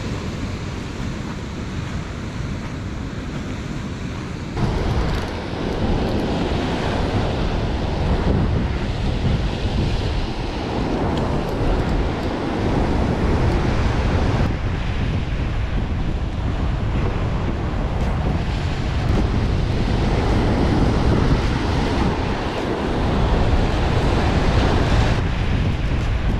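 Rough sea washing and breaking against a rocky shore, with wind buffeting the microphone. The wash gets louder about four seconds in, then swells and eases every few seconds.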